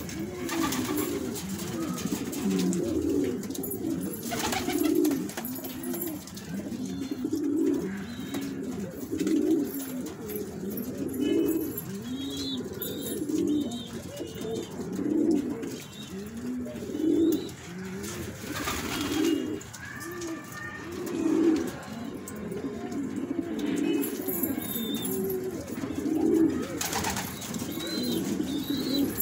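A flock of domestic pigeons cooing, many low coos overlapping one after another, each rising and falling.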